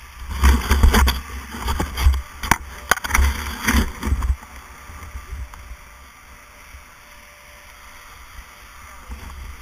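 Skis scraping and skidding over hard-packed snow, with wind buffeting the camera's microphone, for about four seconds as the skier slows to a stop; after that a much quieter steady rushing noise.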